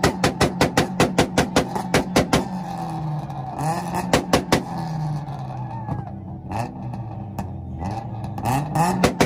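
Tuned car engines held on two-step launch limiters, banging rapidly and evenly at about five a second. A little over two seconds in the banging stops and the engines rev, their pitch rising and falling with a couple of single pops. The rapid limiter banging starts again near the end.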